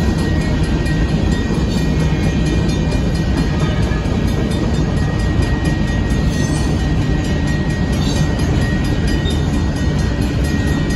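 Covered hopper cars of a Union Pacific grain train rolling past: a loud, steady rumble of steel wheels on the rails, with a thin, steady high tone running through it.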